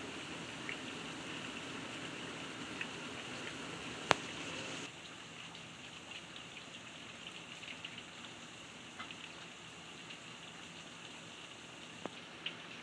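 Heavy rain falling steadily, with scattered ticks of single drops. One sharp click about four seconds in; soon after, the rain sound drops to a somewhat softer level.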